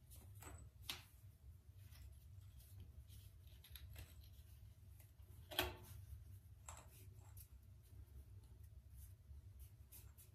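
Faint clicks and taps of small stone pebble-tile pieces being handled and pressed into wet mortar, with the sharpest click a little past halfway, over a low steady hum.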